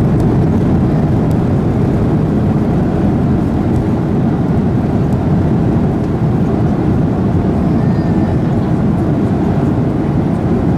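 Steady low rumble inside the cabin of a Boeing 737-800, its engines and wheels running on the ground shortly after landing.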